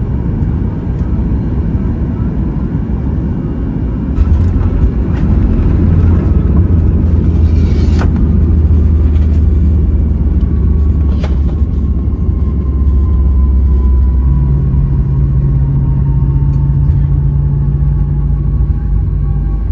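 Cabin noise of a Boeing 737 MAX 8 during landing: a heavy low rumble that grows louder about four seconds in, two short knocks, and a thin whine that slowly falls in pitch through the second half.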